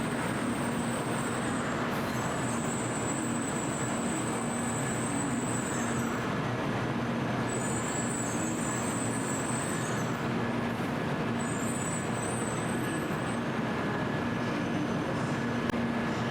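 Steady hum and rumble of a Tokaido Shinkansen platform with an N700-series train standing, with a high hiss that comes and goes every few seconds.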